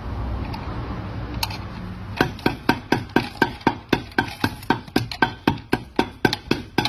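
Claw hammer striking repeatedly: a single blow about a second and a half in, then fast, even blows at about four a second from about two seconds in.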